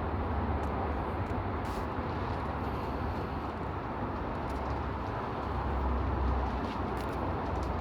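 Steady outdoor background noise: a continuous low rumble with a hiss over it, with a few faint rustles.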